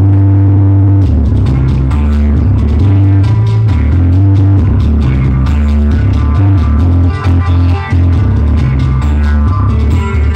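Loud dance music played over stage loudspeakers: a heavy bass line, with a steady percussion beat coming in about a second in and a higher melody over it.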